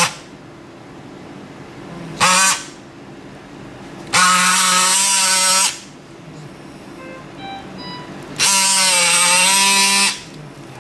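Powered sternal saw running in three bursts as it cuts through the breastbone for a median sternotomy: a short one about two seconds in, then two of about a second and a half each, its whine sagging in pitch and recovering as the blade bites.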